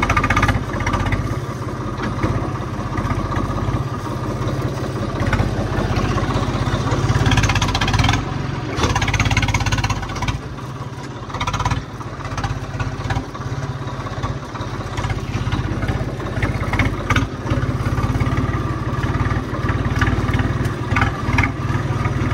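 Farm tractor's diesel engine running steadily, with occasional rattles and clicks.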